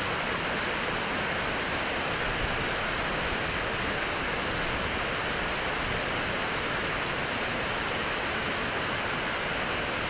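Rushing stream water, a steady even noise with no breaks.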